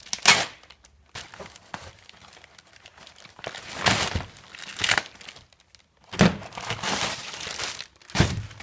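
Packaging being torn open by hand, crinkling and ripping in several irregular bursts, the loudest near the start and in the second half.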